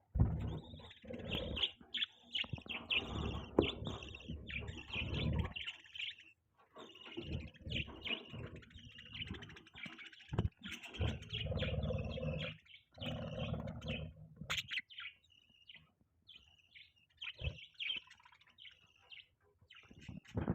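Budgerigars chirping and chattering in quick, dense runs of high chirps, thinning to scattered chirps in the last few seconds, over a low rumble for much of the time.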